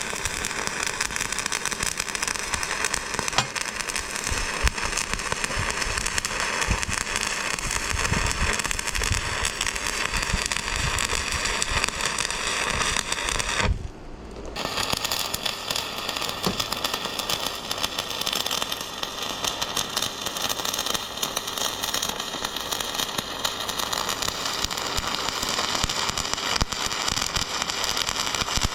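Stick welding arc crackling steadily while a bead is run. The arc breaks off for under a second about fourteen seconds in, then starts again.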